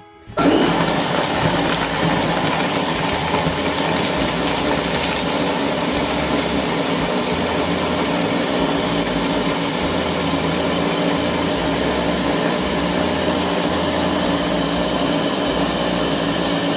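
Small press-top blender motor switching on about half a second in and running steadily as it crushes ice into a green smoothie.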